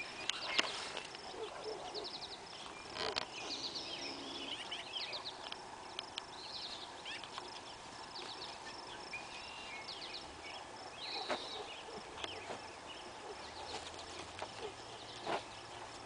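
Small birds chirping in quick, repeated high notes throughout, over outdoor ambience. A few short rustles and knocks come from a cattle-dog puppy nosing through garden soil and plants, the loudest just after the start and again near the end.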